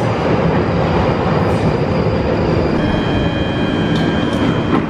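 London Underground tube train pulling into the platform, running with a loud, steady rumble as it slows to a stop. From about three seconds in, a high steady squeal sits over the rumble as the train brakes.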